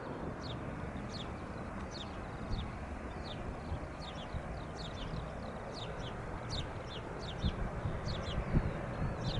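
Small birds chirping: a steady run of short, high, downward-sliding chirps, two or three a second, over a low rumbling background that swells in a few gusts near the end.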